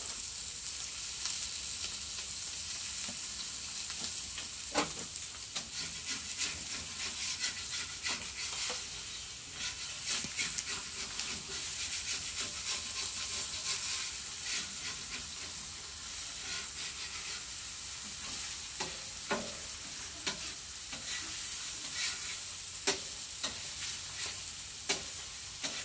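Two thick chuck steaks sizzling steadily on a hot griddle, a constant high hiss dotted with sharp crackles and pops, a few louder ones near the end.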